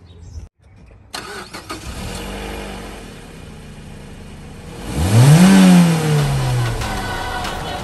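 2005 Mazda MX-5's four-cylinder engine running, then revved once hard about five seconds in, its pitch rising quickly and falling back over a second or so. The rev is the loudest part.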